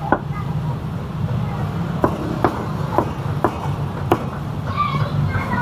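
Meat cleaver chopping roast pork on a chopping block: one chop at the start, then a run of five chops about half a second apart.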